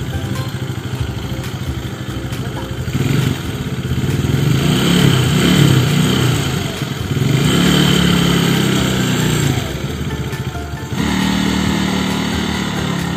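Small automatic scooter engine (Yamaha Mio Sporty) revving up and down unevenly as a beginner works the throttle, its pitch rising and falling. Near the end it changes abruptly to a steadier, lower drone.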